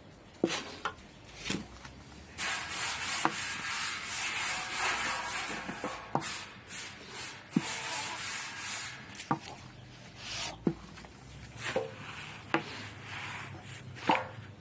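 Small straw hand broom sweeping flour off a hot iron saj griddle in quick repeated brushing strokes, for several seconds from about two seconds in, with a few light knocks scattered around it.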